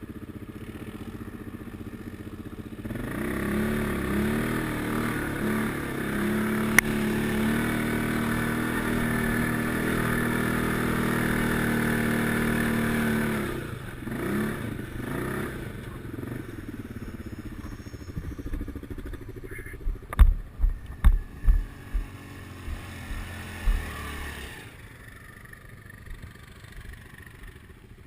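ATV engine revving up about three seconds in and holding at steady high revs for about ten seconds, then easing off with a couple of short pitch glides. A string of sharp, loud low thumps comes about twenty seconds in, after which it runs more quietly.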